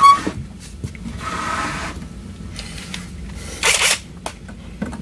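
Handling noises as the blue sheet-metal case of a Zeny 862D+ hot air rework station is turned on a wooden bench: a sharp click at the start, a few light knocks, and a brief scrape late on.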